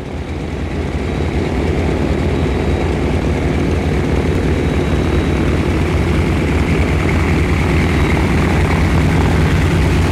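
The twin radial engines of a 1942 Douglas C-47 running on the ground with propellers turning: a steady, deep engine drone that swells up over about the first second, then holds.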